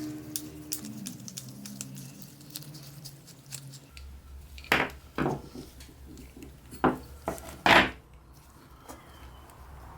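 Metal parts clinking and knocking as they are handled, with a few sharper knocks in the middle and scattered light clicks, over a low steady hum that starts about four seconds in.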